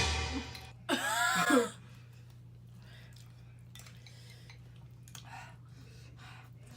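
A short voiced exclamation about a second in, then faint scattered clicks and clinks of utensils against a bowl during noodle eating. A steady low hum runs underneath.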